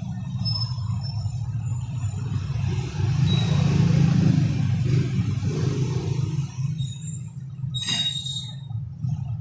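Steady low rumble of road traffic, with faint metallic clinks from work on a steel implement frame and one sharp, ringing metal clank near the end.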